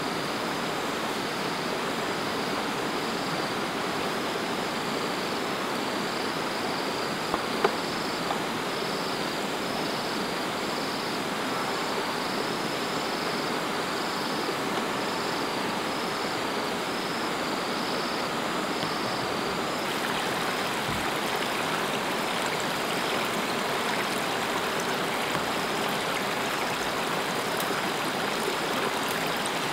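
A steady rushing hiss of running water or rain, with an insect buzzing in a regular pulse of about one beat a second that stops about two-thirds of the way in. A few sharp wooden knocks sound about a quarter of the way in.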